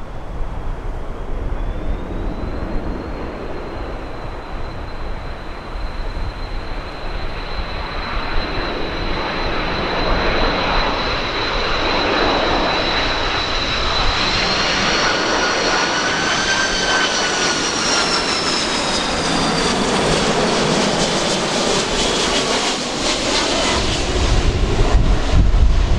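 Airbus A330 jet airliner on landing approach, passing the listener: a high turbofan whine over a growing roar. The whine splits into several tones that rise and then fall in pitch as the aircraft goes by, and a deep rumble swells near the end.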